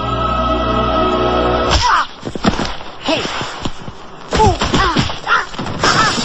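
A held chord of music ends at a thud about two seconds in. It is followed by a string of short, high, squeaky cries that rise and fall, mixed with knocks and clatter, like a cartoon soundtrack's sound effects.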